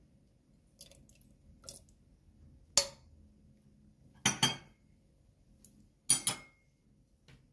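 Kitchenware clinking and knocking against a stainless steel pot as green olives are tipped in from a ceramic bowl. There are several separate sharp knocks: a single loud one about three seconds in, then two short clattering clusters at about four and a half and six seconds.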